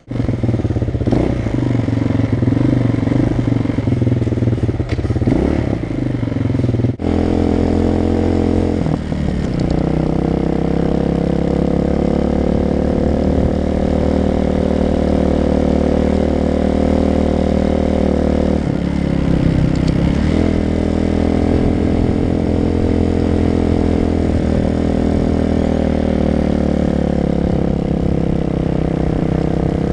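Motorcycle engine running, loud and steady, its pitch rising and falling gently with the throttle. It is rough and clattery for the first several seconds, then settles into a smooth, even note.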